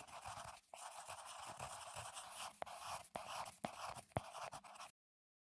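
Pen scratching across paper as lettering is written out, a continuous scratchy stroke sound with a few sharper strokes; it stops abruptly near the end.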